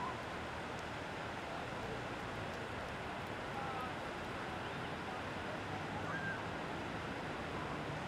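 Ocean surf washing onto a beach, a steady rush of breaking waves with no single wave standing out.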